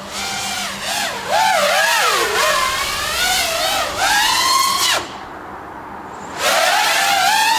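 Brushless motors of an analog FPV quadcopter whining in flight, the pitch rising and falling with the throttle. The whine drops away for about a second and a half near five seconds in, then comes back.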